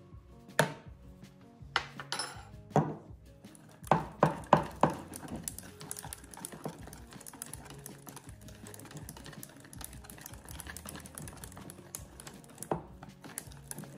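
Wire whisk beating a thick chickpea-flour batter in a bowl: a few sharp clinks of metal in the first five seconds, then steady whisking with many quick light clicks. Background music plays underneath.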